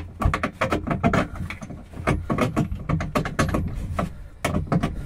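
Rapid, irregular clicks, knocks and scrapes of a metal threaded bar being handled and pushed through a plastic kayak saddle and its foam pillar, knocking against the hard plastic hull.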